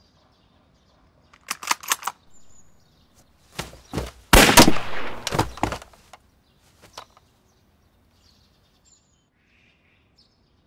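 Several sharp clicks about a second and a half in, then a single loud rifle shot about four seconds in with a long echoing tail, followed by a few faint clicks.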